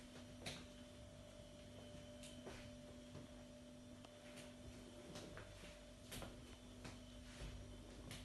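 Near silence: room tone with a faint steady hum and a few soft clicks or taps.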